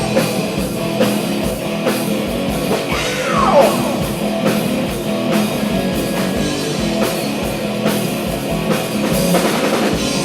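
A rock band playing live, an instrumental passage of guitars, bass and drums with a steady drum beat and a falling, sliding note about three seconds in. Recorded through a camera's built-in microphone.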